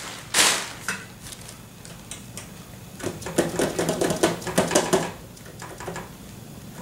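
Handling noise from a Levante bass saxophone: a knock as the horn is set down in its case about half a second in, then a run of light metallic clicks and clacks from its keys and body being handled for a couple of seconds.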